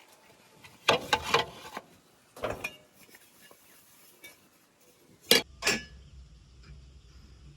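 Hard objects clattering and clinking in short bursts, ending with two sharp knocks about five seconds in, after which a low steady hum sets in.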